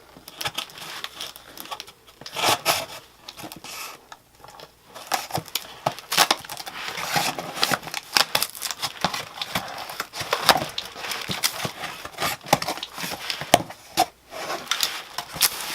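Cardboard box and paper packing being handled and opened: irregular rustling, scraping and crinkling with light knocks and clicks.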